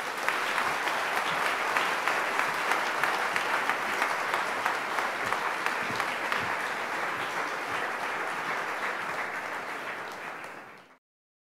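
Audience applauding, steady dense clapping that fades and then cuts off near the end.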